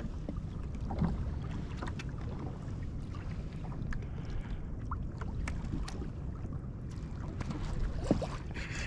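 Wind rumbling on the microphone and water lapping against a kayak's hull, steady throughout, with a few faint scattered ticks.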